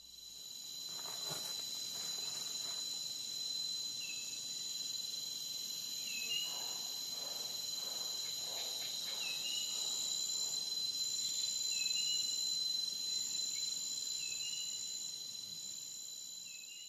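Insects trilling steadily in several high-pitched tones, with a short chirp about every two seconds.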